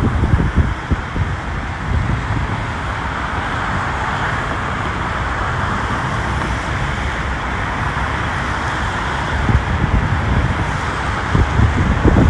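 Steady road traffic noise: engines and tyres of vehicles on a congested parkway, a continuous rushing hiss over a low rumble. Gusts of wind buffet the microphone near the start and again near the end.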